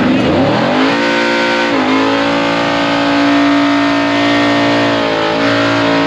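Ford F-150 pickup's engine revving up hard within about a second and held at high, steady revs for a burnout, with its rear tires spinning. The revs dip briefly twice.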